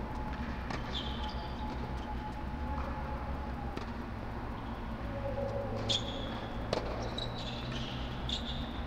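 Tennis rally: sharp pops of racket strings striking the ball every second or two, with short high squeaks of sneakers on the court surface, over a steady low hum.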